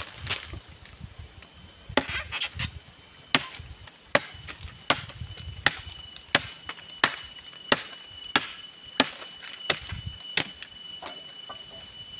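Machete chopping into a woody bajakah vine: a few uneven knocks, then a steady run of about a dozen sharp strikes, roughly one every 0.7 seconds, that stops shortly before the end.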